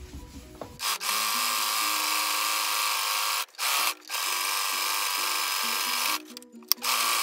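Singer domestic electric sewing machine running steadily as it sews a reinforcing zigzag stitch along the fabric edge. It stops twice briefly around the middle and pauses again for under a second near the end before running on.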